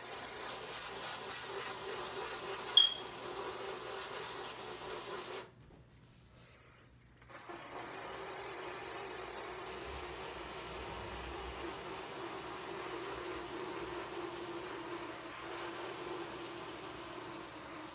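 Continuous scratchy rubbing noise of something brushing against the covered phone microphone. It stops for about two seconds near the middle, and there is one sharp click about three seconds in.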